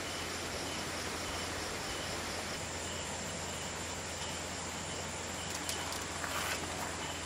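Outdoor campsite ambience of insects chirring in a steady high-pitched drone, over a low steady hum. A few faint clicks or rustles near the end.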